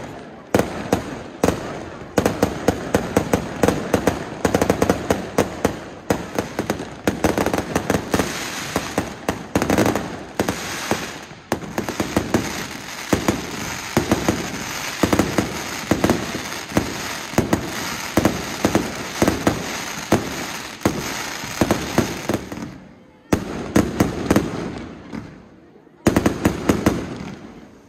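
Fireworks going off in quick succession: dense crackling and popping with many sharp bangs, from ground fountains and bursting aerial shells. There are two brief lulls near the end.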